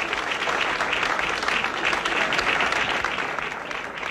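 Crowd applauding, many hands clapping steadily; it tapers off near the end.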